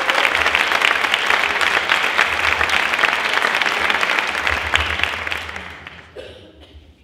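A roomful of people applauding with dense clapping that fades out over the last two seconds.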